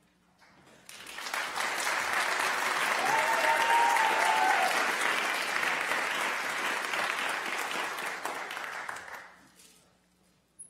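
Audience applauding, swelling in about a second in, holding steady, and dying away near the end.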